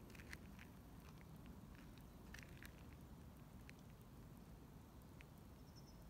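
Near silence: a faint low rumble with a few short, faint ticks scattered at irregular times.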